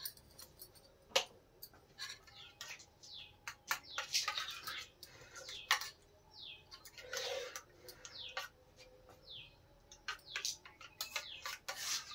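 A small bird chirping: several short, high calls, each falling in pitch, spaced a couple of seconds apart. Scattered light clicks and taps are heard between them.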